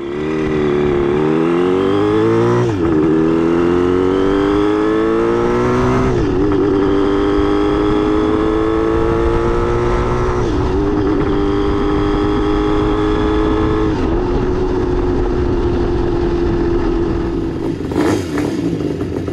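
Kawasaki S3 500 twin motorcycle engine pulling up through the gears: the note rises, drops at each of four upshifts about 3, 6, 10 and 14 seconds in, then holds steady at a cruise.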